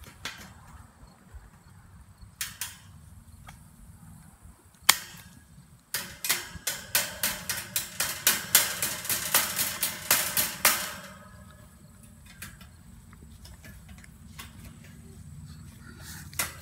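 Fencing pliers cutting aluminum tie wire with a few sharp clicks. Then the pliers are used as a hammer to tap the cut wire ends flat against a welded-wire hog panel: a quick run of about twenty ringing metal taps, some four a second, lasting about five seconds.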